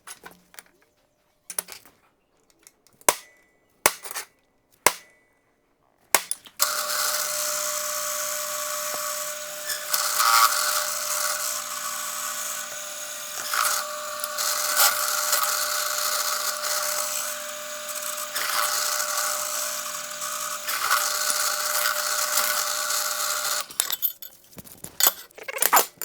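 A few sharp clicks and knocks, one with a brief metallic ring. Then an electric power tool starts about six seconds in and runs steadily for some seventeen seconds before cutting off, followed by a few more knocks near the end.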